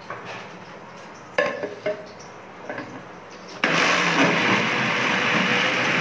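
A few light clicks and knocks, then about three and a half seconds in an electric kitchen blender switches on and runs loud and steady, blending raw green mango with mint and coriander leaves into juice.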